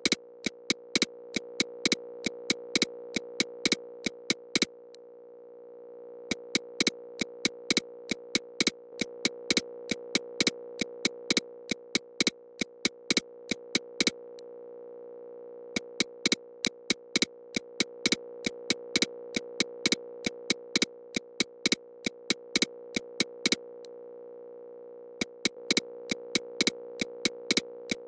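Synthesized EMDR bilateral-stimulation audio: sharp clicks about three a second in runs separated by short pauses, over a steady electronic drone near 500 Hz that slowly swells and fades.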